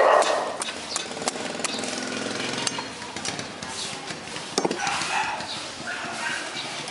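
Machete blade chopping and shaving the husk off a young green coconut in quick strokes, about three a second, then a single sharper knock about four and a half seconds in.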